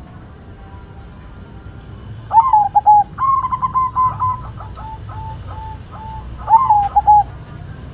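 White zebra dove (perkutut) cooing. About two seconds in comes a short coo phrase that rises and then breaks into quick notes, followed by a run of quick falling staccato notes, and another short coo phrase near the end.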